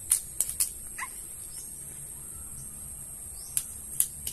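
Sharp, short chops of a machete blade striking a bamboo stake: a quick run of three or four in the first second, then three more near the end. A steady high insect drone runs underneath.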